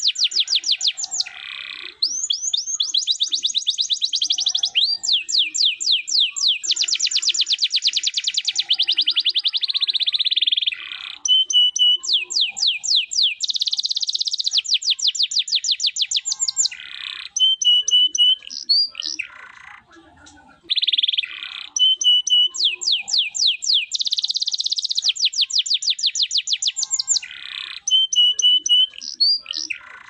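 Domestic canary singing in full song: long, fast rolls of rapidly repeated sweeping notes, broken by short clear whistled notes and a couple of brief pauses.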